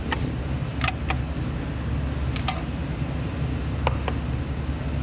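Light metal clicks from a small screw and Torx driver being worked into a tight spot, in about three close pairs, over a steady low hum.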